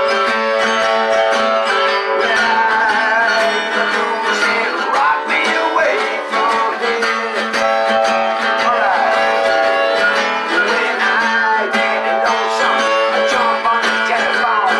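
Harmonica and strummed acoustic guitar playing a blues together, the harmonica holding and bending notes over a steady strum.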